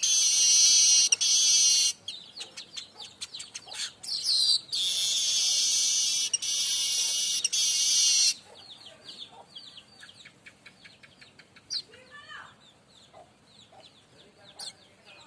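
Streaked weaver singing: two long, loud buzzing phrases high in pitch, the first ending about 2 s in and the second lasting from about 4.5 s to 8 s, with rapid dry ticking notes between them. After the second phrase come quieter ticks and short chirps.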